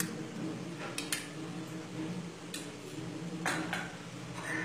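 A few light clinks and scrapes of a small glass bowl and utensils against a metal kadai, over a low steady hum.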